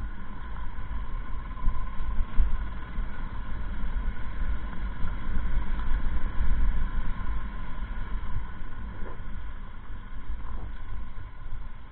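Motorcycle engine running steadily while riding, heard through a deep, steady wind rumble on the bike-mounted camera's microphone.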